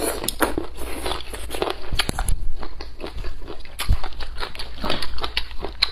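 Close-miked chewing and slurping of boneless chicken feet in chili oil: a rapid run of short mouth clicks and smacks.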